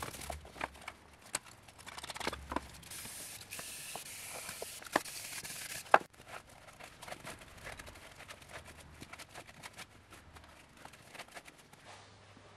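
Small brush scrubbing and scraping caked dirt and grease off the bare steel of a car's engine bay: a run of short scratchy scrapes and clicks. A steady hiss runs from about three to six seconds in and ends in a sharp click.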